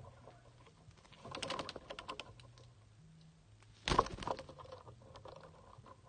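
Rapid clicking and scratching, like a beak working at nest material: one burst of quick clicks about a second in and a louder, sharper burst near four seconds, with scattered ticks between.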